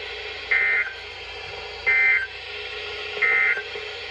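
NOAA Weather Radio end-of-message SAME data bursts: three short, buzzy digital tone bursts about a second apart over steady radio hiss. They signal the end of a broadcast severe thunderstorm warning.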